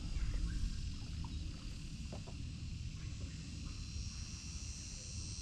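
Low rumble of wind on the microphone, with a steady faint high-pitched hiss or buzz and a few light clicks.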